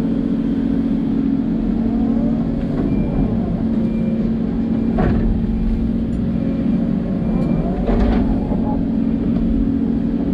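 Hidromek 140LC excavator's diesel engine running steadily while it works, with whining tones that rise and fall as the hydraulics move the arm and bucket. Two short knocks come about halfway through and again near the end.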